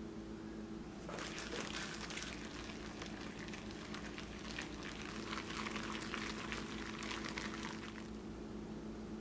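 Minced shrimp with egg white and cornstarch being stirred by a plastic-gloved hand in a glass bowl: a wet, crackling squish that starts about a second in and stops near the end, the stirring done in one direction until the paste stiffens. A faint steady hum runs underneath.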